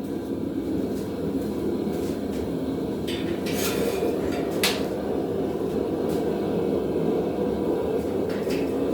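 Steady low roar of a running forge, with metal tools clinking sharply a few times around the middle.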